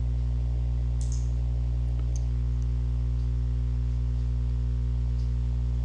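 Steady low electrical hum, mains hum with its overtones, with a few faint mouse clicks about one and two seconds in.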